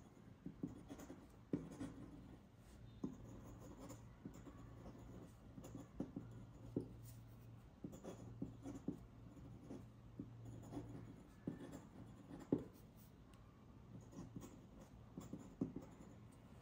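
Feathered dip pen scratching across paper in short, irregular strokes of handwriting.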